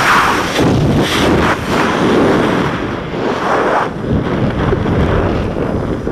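Heavy wind buffeting a body-worn action camera's microphone as it rushes through the air on a gorge swing, a loud rumbling rush that swells and dips.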